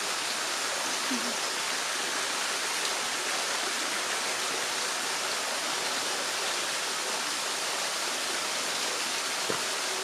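Double waterfall pouring, a steady, even rush of falling water.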